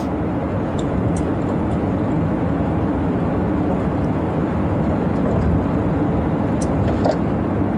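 Steady road and engine noise inside a moving police patrol car, with a few faint clicks.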